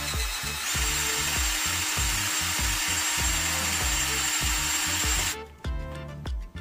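Cordless drill running steadily with a high whine, spinning a length of copper wire clamped in its chuck to straighten it. The drill stops about five seconds in.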